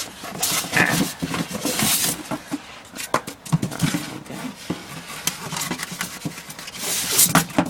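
Cardboard box and packing material being handled and pulled out: rustling, scraping and scattered knocks.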